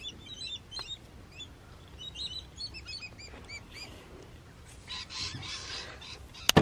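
Small birds chirping, many quick repeated chirps over the first few seconds, then a brief hiss and a sharp click just before the end.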